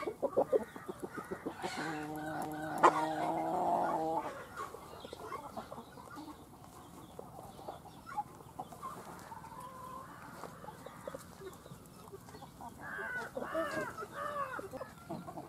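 Chicken clucking: a quick run of clucks, then one long flat call held for about two seconds, pierced by a sharp click, then softer sounds and a few short calls that bend in pitch near the end.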